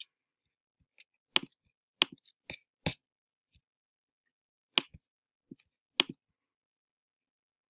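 Computer mouse clicking, about six sharp single clicks at irregular intervals, then nothing from about six seconds in.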